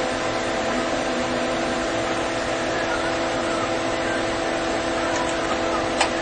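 TIG welding arc running steadily: an even hiss with a held, multi-toned buzz, and a sharp click near the end.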